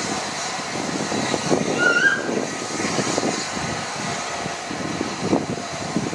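Wind buffeting the microphone in irregular low gusts, with one short rising chirp about two seconds in.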